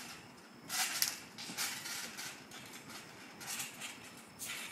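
Round backyard trampoline's steel springs and mat rattling and creaking under each bounce, a short burst roughly once a second.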